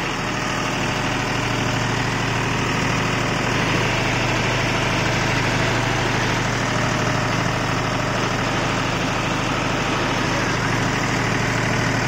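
John Deere tractor's diesel engine running steadily at an even idle, with a constant low hum.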